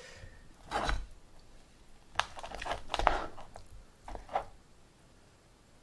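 Chef's knife cutting through smoked baby back ribs on a plastic cutting board: four or five short cuts, two of them with a sharp tap as the blade meets the board.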